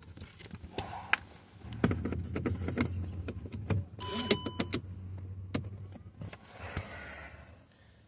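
Scattered clicks and knocks from handling, over a low steady hum, with a quick run of electronic beeps about four seconds in.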